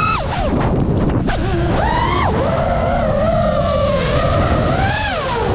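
FPV drone's brushless motors and propellers whining, the pitch swooping up and down with the throttle: it drops sharply right at the start and again a little after two seconds, then holds fairly steady through the middle and swells briefly near the end. A rough rush of wind on the microphone runs underneath.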